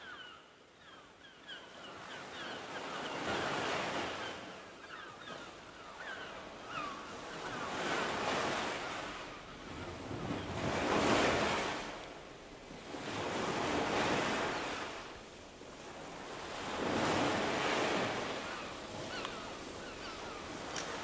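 Ocean surf: waves washing in and drawing back, swelling and fading every few seconds, loudest about halfway through. Faint short chirps sound over it in the first part.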